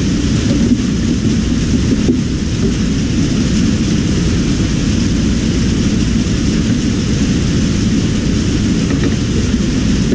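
Heavy downpour: steady rain noise with a strong low rumble, and two light knocks in the first couple of seconds.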